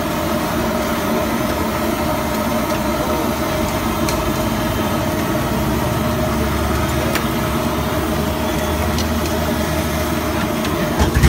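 Steady roar of a high-pressure gas burner running at full flame, with a few light clinks from a metal spatula on the wok and plates.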